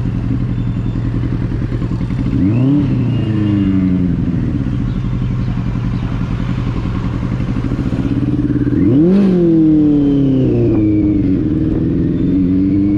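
Benelli 600i's inline-four engine running while riding, revving up sharply twice, about two and a half and nine seconds in, each time falling back more slowly, then climbing gently again near the end.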